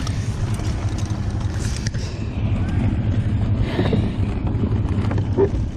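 Boat motor running steadily, with a continuous low rumble and wind noise on the microphone.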